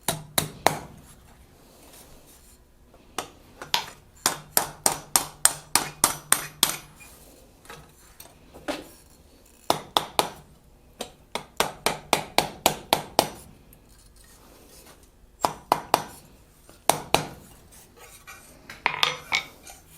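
A small hammer striking steel: quick runs of light metallic blows, about three a second, with short pauses between the runs, as fine detail is struck into a small steel snowflake ornament.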